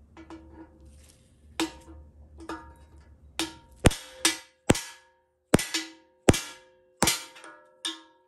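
Hammer striking a steel bushing driver to drive a new rear bushing into a GM TH400 transmission case. About a dozen sharp blows start about a second and a half in, spaced irregularly and coming faster toward the middle, each leaving a brief metallic ring.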